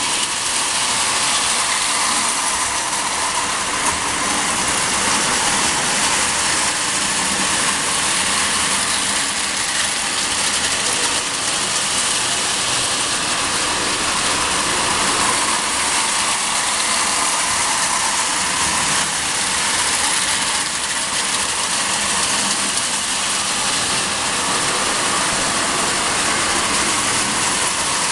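Marx O gauge tin toy electric trains running on tinplate track: a steady whirr of the motors and rattle of tin wheels on the rails.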